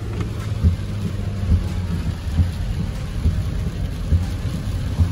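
Low, steady rumble of a car driving, heard from inside the cabin, with a soft low thump a little more often than once a second.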